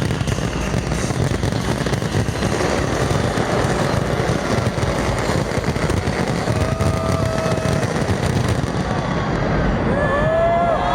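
Large fireworks display going off in a dense barrage: continuous deep booms and crackling, with a few high whistles near the end.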